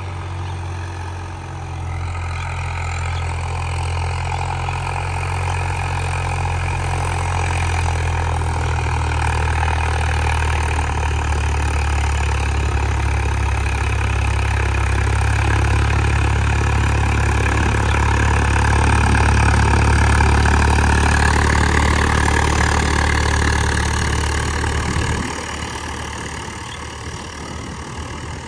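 Swaraj 744 FE tractor's three-cylinder diesel engine running steadily, growing louder and then dropping away about twenty-five seconds in.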